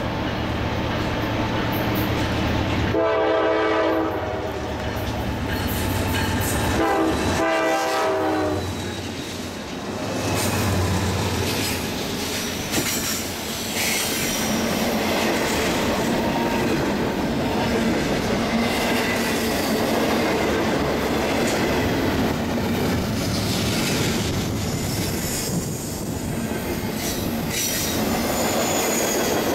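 Three Norfolk Southern GE C44-9W diesel locomotives sounding their horn in two blasts of about a second and a half each, over the rumble of their engines. Then double-stack container cars roll past close by, with a steady roar of wheels on rail and scattered clacks.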